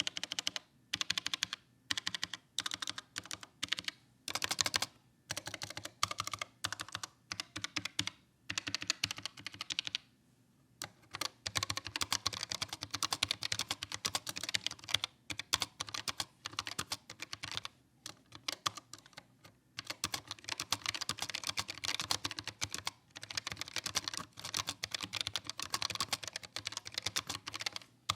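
Typing on a Keychron K1 low-profile mechanical keyboard: keys clacking in short spurts with pauses at first, then fast, continuous typing from about ten seconds in.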